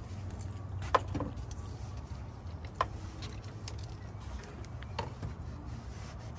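Three sharp clicks or knocks, about a second, three seconds and five seconds in, the first the loudest, over a steady low rumble.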